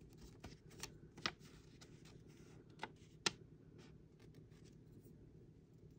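Quiet handling of paper wrapping being unfolded: soft rustling with a few light ticks, the sharpest about three seconds in.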